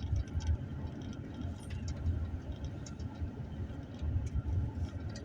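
Vehicle running slowly, heard from inside the cab: a low, uneven rumble, with faint scattered clicks and rattles.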